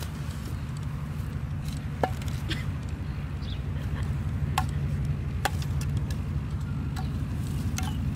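Small fire of dry leaves and twigs crackling, with sharp irregular snaps about once a second, over a steady low rumble.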